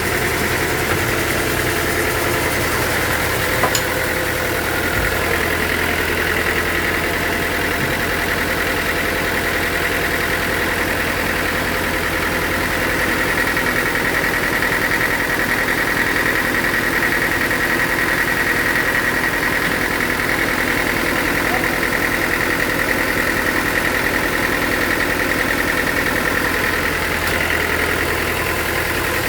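Sawmill machinery running steadily: a low engine drone under a high, steady whine that swells louder through the second half.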